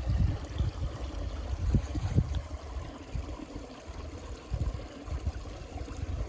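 A small stream trickling, overlaid by irregular low thumps and rumble from footsteps and the microphone being carried downhill.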